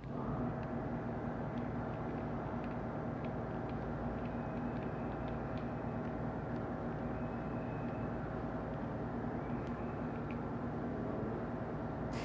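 A machine running steadily with an even droning hum, switching on abruptly.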